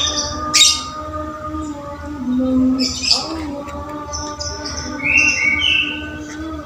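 Orange-headed thrush song: short, sharp whistled phrases, a clearer run of notes a little before the end, over a steady low hum whose pitch steps now and then.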